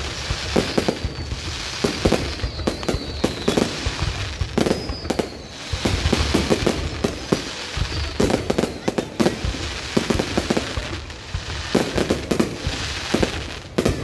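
Fireworks going off in quick succession: many sharp bangs and crackles, with several whistling shells that fall in pitch.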